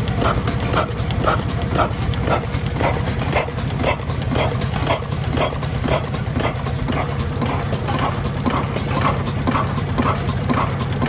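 Blackstone 6 hp portable oil engine running steadily, a sharp clack about twice a second over a continuous low drone.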